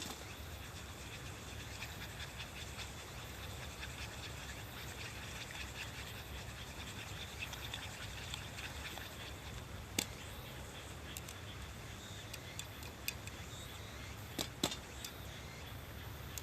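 Cooking over a wood fire: faint continuous crackling over a low steady rumble, with a few sharp clicks or pops, one about ten seconds in and two close together near the end.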